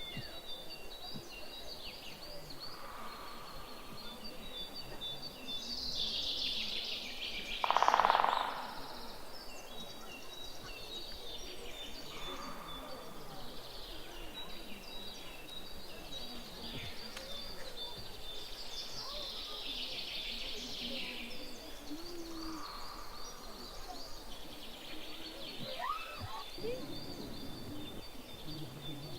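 Wild birds singing in woodland, with several birds repeating high-pitched notes throughout. A louder, lower call comes about eight seconds in.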